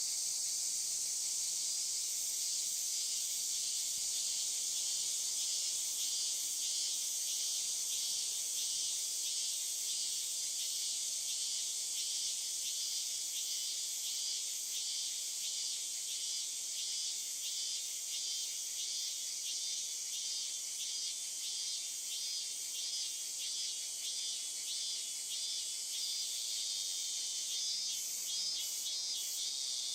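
Insects calling in a nature ambience: a steady high-pitched drone with repeated pulsing chirps over it.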